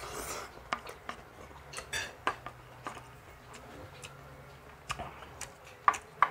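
Spoon and fork clinking and scraping against a plate while eating: scattered light clicks, with two sharper clinks near the end.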